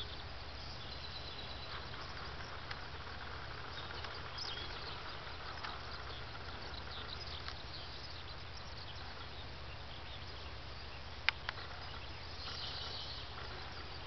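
Quiet open-field ambience: a low steady rumble with faint scattered high chirps, and two sharp clicks in quick succession a little past the middle.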